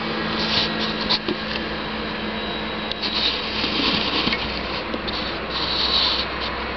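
Camera handling noise: short bursts of rubbing and scraping close to the microphone, a few times, over a steady low hum.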